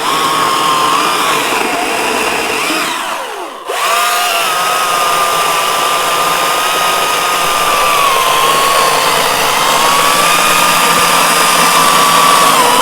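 GreenWorks commercial battery chainsaw running at speed with a steady high electric whine, its pitch wavering slightly as it cuts through a branch. A little after three seconds in, the motor spins down briefly with a falling pitch, then snaps straight back up to full speed.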